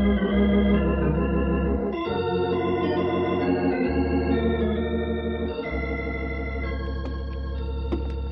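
Organ music bridge: a short phrase of held chords changing every second or two, marking a scene change in the radio drama.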